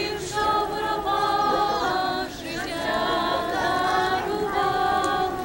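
A group of voices singing a Ukrainian hayivka, a ritual Easter spring song, unaccompanied in unison, in long held notes.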